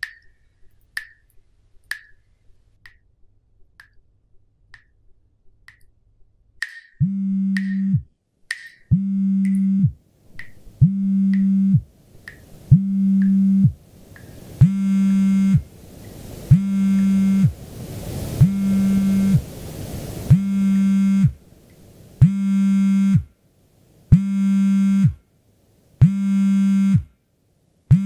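Water drops falling from a bathtub spout, about one tick a second. About seven seconds in, a low buzzing synthesizer tone joins and pulses on and off in a steady rhythm, with a hiss that swells and then fades midway.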